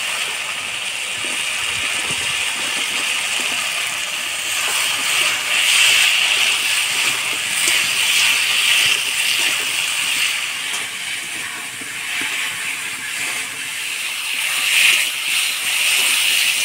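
Thick masala frying in hot oil in a metal wok, sizzling steadily while boiled jackfruit seeds are stirred through it with a spatula. The spatula scrapes the pan now and then, and the sizzle swells in spells.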